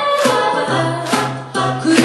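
Live a cappella singing: a female lead voice sung into a microphone over voiced harmonies and a held low bass note that comes in about a third of the way through, with a sharp percussive hit about once a second.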